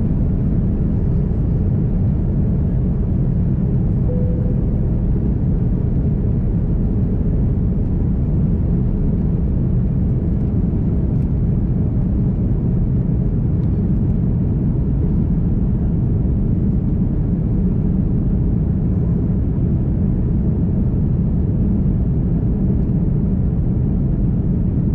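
Airbus A330-200 heard from inside the economy cabin during the takeoff climb: the engines at takeoff power and the airflow make a steady, loud, deep rumble.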